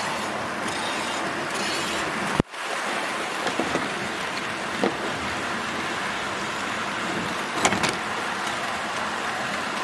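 HO scale model freight train's wagons rolling past on the track, a steady rolling noise with a few short clicks, and a sharp click with a brief dropout about two and a half seconds in.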